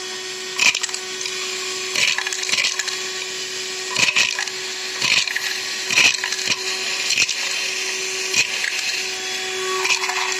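Cordless handheld vacuum cleaner running with a steady whine while sucking up small coins, which rattle into it as sharp clicks about once a second.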